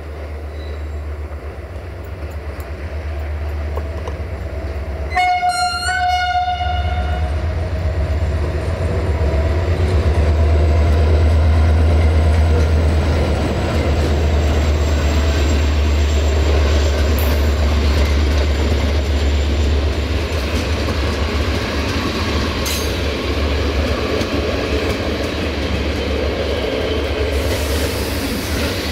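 CFR diesel locomotive 64-1264-2 hauling a passenger train past at low speed, its engine giving a deep steady rumble. About five seconds in it sounds one horn blast lasting a second or so. Then the coaches roll by with steady wheel-on-rail noise and a single click at a rail joint.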